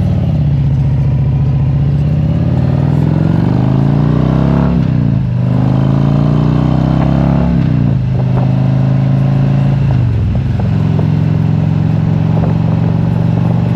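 Harley-Davidson Street Glide's V-twin engine accelerating on the road, its pitch rising then dropping at two upshifts, about five and eight seconds in. It then runs steadily at cruising speed.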